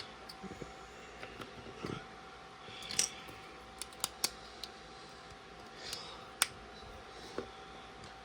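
Plastic LEGO bricks being handled and fitted together: a handful of scattered sharp clicks and light rustling, with a faint steady hum underneath.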